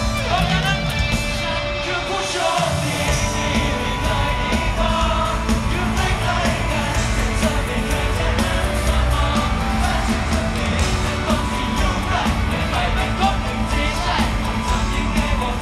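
Live pop song through a concert PA: members sing into handheld microphones over a band backing with a steady beat. The bass drops out briefly about two and a half seconds in.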